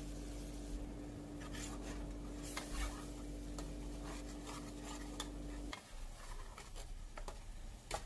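A metal spatula stirs and scrapes ginger-garlic paste frying in oil against the bottom and sides of a metal pot, in short irregular scraping strokes. A steady low hum underneath cuts off about six seconds in.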